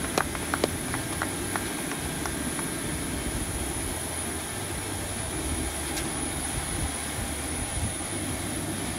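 Steady drone and high whine of a parked airliner running on the apron, with a few scattered handclaps fading out in the first couple of seconds.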